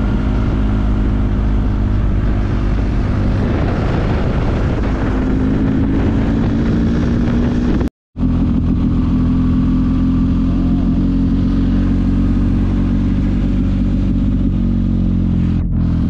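Motorcycle engine running steadily at cruising speed, picked up from on the bike while riding. The sound cuts out completely for a moment about halfway through, then comes back the same.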